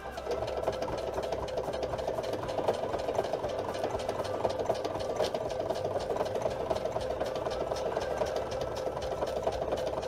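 Electric sewing machine running steadily, stitching through sew-on Velcro tape and the fabric beneath it in a fast, even run of needle strokes.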